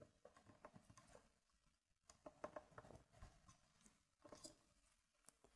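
Faint light wooden clicks and taps as thin kumiko strips are handled and pressed into a hexagonal coaster frame on a wooden board, grouped about halfway through and again a little before the end.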